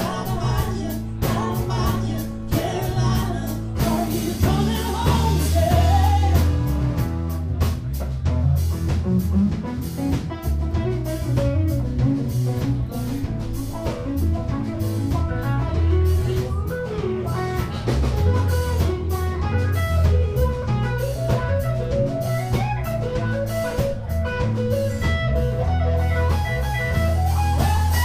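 Live band playing a song: singing over electric bass, electric guitar and acoustic guitar, with a steady beat.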